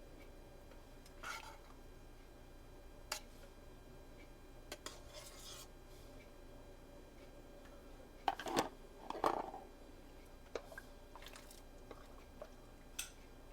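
Kitchenware clinking and knocking as soup is dished out: scattered light clinks of utensils against a pot and bowl, with a louder run of clatter about eight to nine and a half seconds in.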